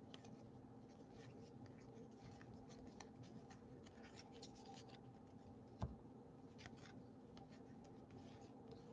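Faint scratchy rustling of a stack of 2018 Topps Series 2 baseball cards being slid past one another by hand, with one sharper tap about six seconds in.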